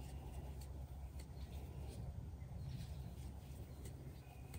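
Crochet hook and acrylic yarn being worked by hand: faint light clicks over a steady low hum, with a short high chirp near the end.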